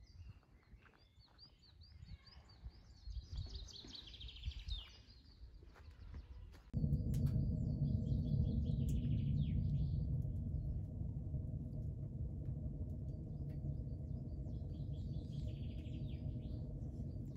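Small birds chirping and twittering in a pine forest. About seven seconds in a steady low rumble sets in, and a bird's descending trill sounds twice over it.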